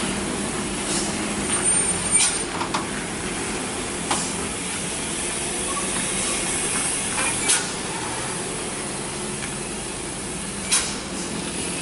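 Heavy truck engine running steadily, with several short sharp noises standing out above it.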